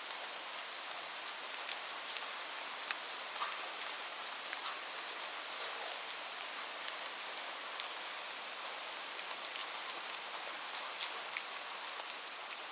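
Light rain falling steadily: an even hiss with many small, distinct drop ticks.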